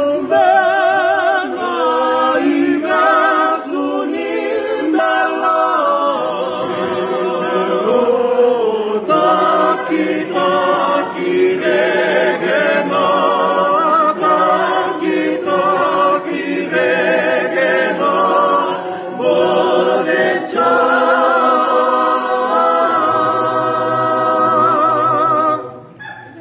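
A group of voices singing a cappella in several parts at once, the held notes wavering with a strong vibrato. The singing stops near the end.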